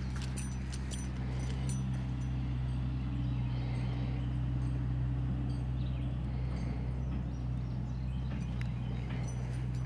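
Pigs snoring: a steady low drone that swells slightly midway, with faint scattered clicks.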